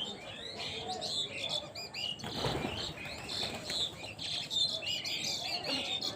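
A dense chorus of small birds chirping and tweeting, with a brief flurry of flapping wings about two and a half seconds in.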